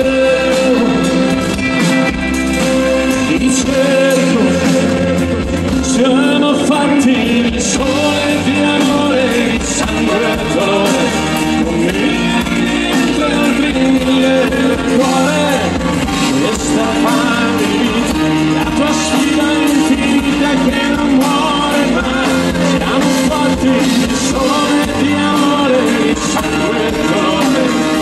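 Rock band playing live through a PA: electric guitars, bass guitar, drums and keyboards in a continuous full-band passage.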